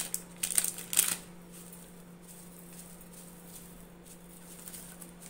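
A few short clicks and rustles in the first second or so as coriander powder is added with a spoon from a spice packet into a stainless steel bowl. After that only a faint steady hum.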